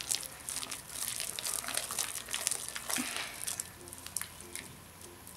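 Wet, sticky clear glue slime being squeezed and kneaded by hand in a glass bowl: irregular sticky crackling and squelching, busiest in the first few seconds and thinning out near the end.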